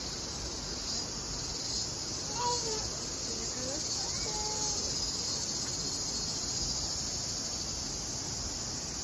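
Steady, high-pitched chorus of insects that does not let up, with a few faint short gliding calls a few seconds in.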